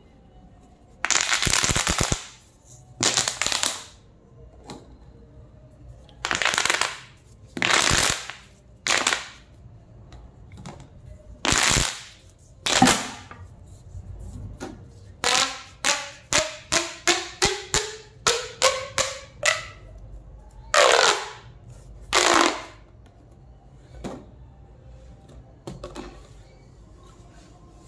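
Plastic pop tubes being pulled and pushed, their ridged sections snapping open and shut: a series of sharp pops and crackly bursts, each under a second long. Around the middle comes a quick run of about a dozen pops, climbing steadily in pitch.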